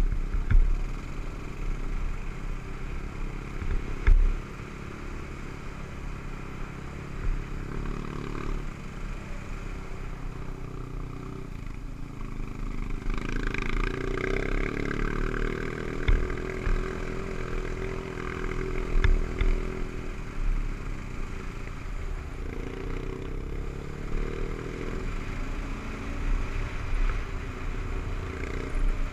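Kawasaki KLR 650's single-cylinder four-stroke engine running on the move, its note rising and falling with the throttle, under a steady low rumble. A few sharp knocks come through near the start and again in the middle.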